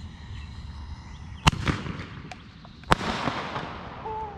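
Firework mortar fired from a tube glued to a riot shield: two sharp bangs about a second and a half apart, the shell launching and then bursting, each followed by a crackling hiss that fades out.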